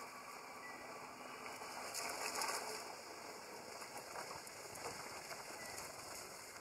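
Water splashing and sloshing as macaques wrestle in shallow muddy water, with a cluster of splashes about two seconds in and a few smaller ones later.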